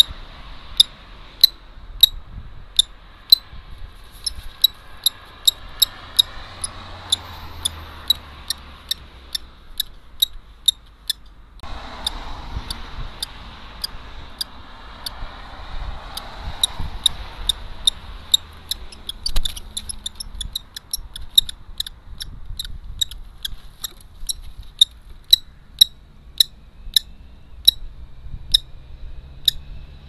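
Common kestrel calling: a long, uneven series of short, sharp high notes, about two a second, quickening in places.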